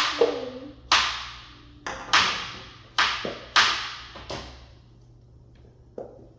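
A nearly empty plastic glue bottle squeezed hard over and over, about once a second: each squeeze gives a sharp pop and then a hiss of air forced out of the nozzle that fades away. After six squeezes it goes quieter, with one fainter squeeze near the end.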